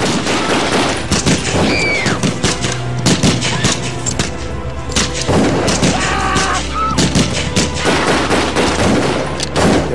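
Rapid gunfire, dozens of shots in quick succession, over dramatic background music with a steady low drone.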